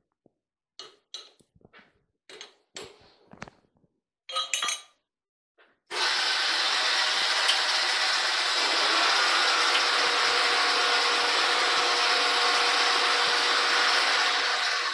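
Metal clinks and knocks as a plate is set and clamped in a Warner & Swasey turret lathe's chuck. Then, about six seconds in, the spindle and flood coolant come on abruptly: a loud, steady rushing of coolant splashing over the spinning chuck, with a faint steady machine tone under it.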